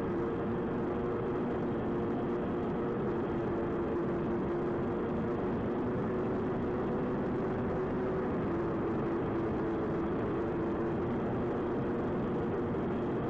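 Twin electric motors and propellers of an AtomRC Swordfish FPV plane running steadily in cruise, recorded by its onboard camera. They make a continuous two-note hum over a rush of air, and the pitch dips slightly for a moment about two-thirds of the way through.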